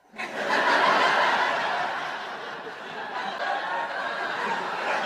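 Audience laughing, a burst that starts suddenly, is loudest about a second in, and carries on steadily.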